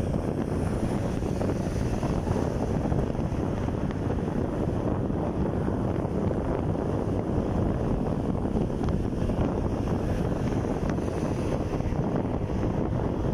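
Steady wind buffeting the microphone of a moving motorcycle, a dense low rush with the bike's running noise mixed in.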